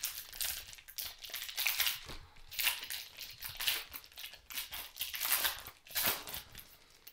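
Foil wrapper of a 2019-20 Panini Prizm basketball retail pack crinkling in the hands as it is torn open and the cards are pulled out, in repeated, irregular rustling bursts.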